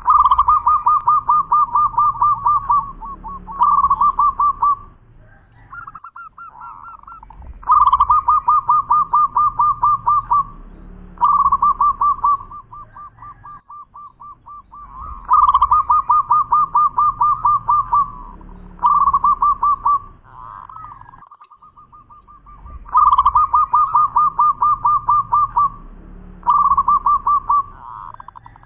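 Zebra dove (perkutut) singing its cooing song: four phrases about seven seconds apart, each a fast run of short, evenly repeated coos at one pitch, broken into a long run and a shorter one, with soft single coos between the phrases.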